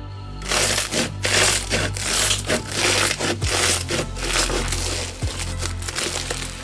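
Floam slime, packed with tiny foam beads, squeezed and kneaded by hand: dense, irregular crunchy crackling and popping that starts about half a second in.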